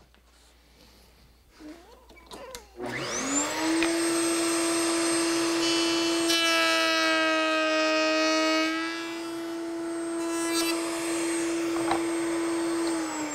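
Table-mounted router with an angle-making groove bit switched on about three seconds in, spinning up to a steady high whine. From about six to nine seconds in the tone changes as a practice piece of wood is fed through the bit. It is switched off near the end, the whine falling as the bit spins down.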